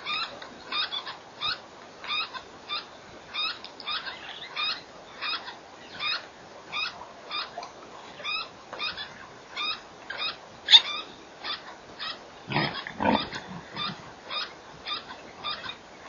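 Birds calling from a shrub: a steady run of short, rising chirps, two to three a second. One sharp, louder call comes about 11 seconds in, and a lower, rougher call follows a couple of seconds later.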